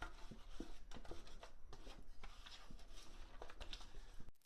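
Faint soft rubbing with scattered light clicks and ticks: hands working a flour-and-spice coating into cleaned pearl spot fish.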